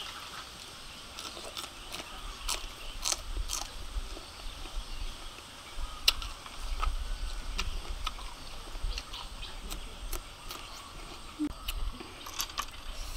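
Grilled clam shells clicking and clacking as they are picked from the pile and pried open by hand, in scattered sharp clicks, the loudest about six seconds in, over a low rumble.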